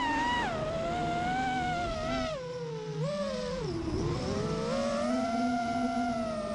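Multirotor drone motors and propellers whining, the pitch sliding down and back up with throttle changes. The whine dips lowest about four seconds in, then climbs back.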